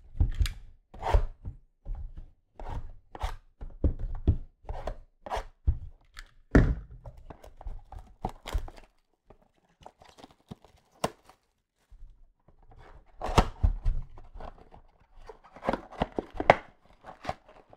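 Trading cards being handled and laid down on a table: a run of sharp taps about every half second to a second, then a few sparse ones, then a busier stretch of shuffling and tapping near the end.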